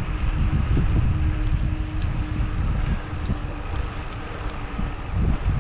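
Wind rumbling on the microphone of a camera carried by a cyclist riding on an asphalt road, mixed with bicycle tyre noise and a faint steady hum.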